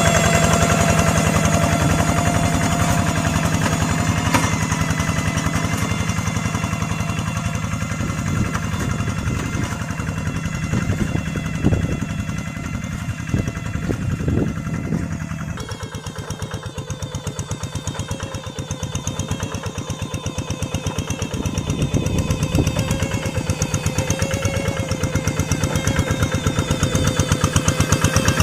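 Single-cylinder engine of a two-wheel hand tractor running under load while working a rice paddy, its exhaust firing in a rapid, even chatter. Its note shifts and drops about halfway through, then carries on.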